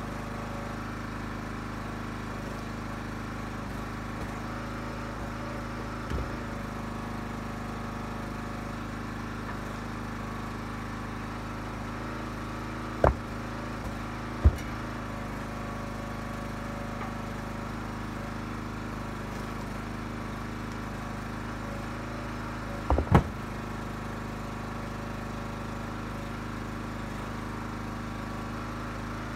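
Huskee 35-ton gas log splitter's engine running steadily, with a few sharp knocks as split ash pieces are thrown into the pickup bed, two of them in quick succession near the end.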